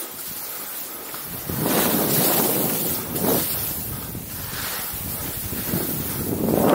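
Skis hissing and scraping over packed snow through a series of turns, with wind buffeting the microphone; the hiss swells with each turn, strongest about two seconds in, briefly again past three seconds, and near the end.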